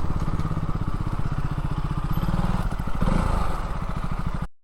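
Motorcycle engine idling steadily in a close, even pulse, cutting off abruptly near the end.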